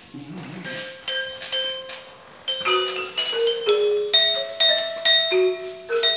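Metallophone with metal bars struck with two mallets, playing a tune note by note, each note ringing on after it is struck. The notes come slowly at first and then faster from about two and a half seconds in.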